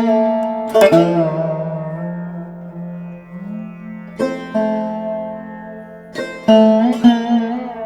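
Live Pakistani classical music on tabla and harmonium. Sparse, ringing tabla strokes come a second or more apart, and after the first stroke the bass drum's pitch slides slowly upward before the next strokes.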